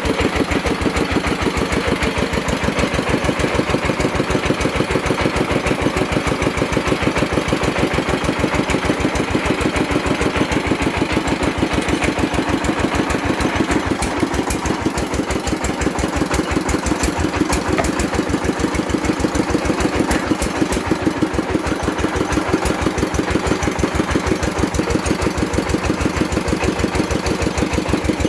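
Engine of a well-drilling rig running steadily, with an even, rapid beat of firing pulses.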